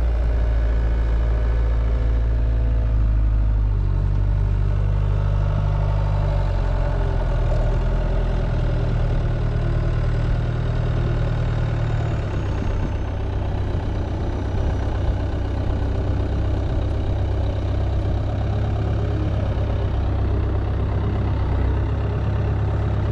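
Skid steer engine running steadily after being left to idle and warm up in the cold, its note shifting about four seconds in and again about twelve seconds in.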